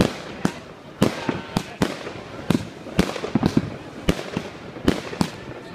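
Fireworks going off all around: sharp bangs and cracks at irregular intervals, roughly two or three a second.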